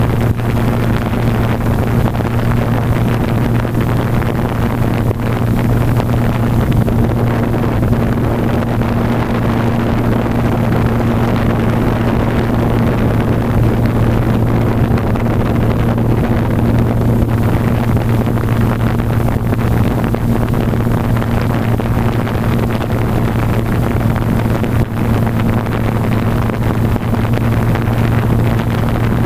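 Blade 350 QX quadcopter's motors and propellers, heard from the GoPro mounted on it in flight: a steady, unbroken hum with a rush of prop wash over the microphone.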